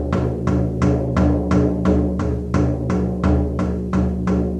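Steady, even drumming on a shamanic-style hand drum for a Reiki drum journey, about three beats a second, the drum's low tone ringing on between strokes.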